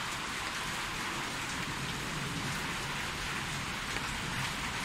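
Heavy rain pouring steadily onto wet ground, an even, unbroken hiss.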